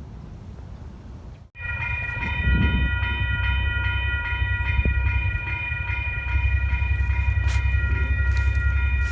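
Locomotive air horn on an EMD SW1500 switcher, sounding for a road crossing. A chord of several steady tones starts about a second and a half in and is held to the end as one long blast, over a low rumble.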